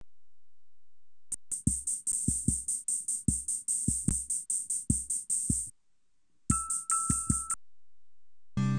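Electronic drum-machine beat: fast, even hi-hat-like ticks, about four or five a second, over low kick-drum thumps. It stops for under a second, returns briefly with a steady high synth tone on top, stops again, and a sustained chord comes in near the end.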